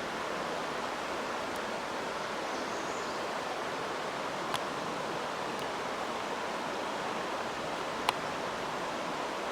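Creek water running over rocks, a steady even rush, with two short sharp clicks, one about halfway through and one near the end.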